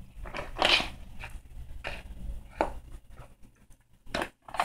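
A kitten in a plastic recovery cone eating dry kibble off a hard floor: a few irregular short crunches and scrapes, the loudest about a second in.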